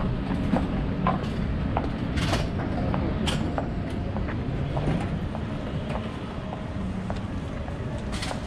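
City street ambience: a steady low traffic rumble, with scattered clicks and knocks throughout.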